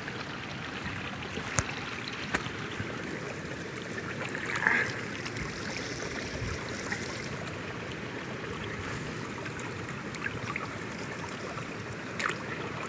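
Shallow water running steadily over stones in a small paddy-field irrigation channel, with a few short clicks.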